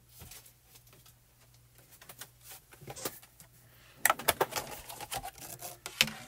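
Clear plastic PanPastel tray being handled: a few faint taps, then from about four seconds in a quick run of sharp plastic clicks and rattles as the tray is picked up and moved.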